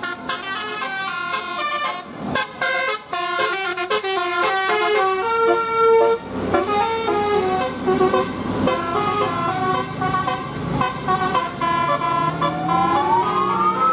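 Multi-tone basuri 'telolet' bus horn playing a tune: quick stepping notes at first, then slower held notes, with a rising glide near the end.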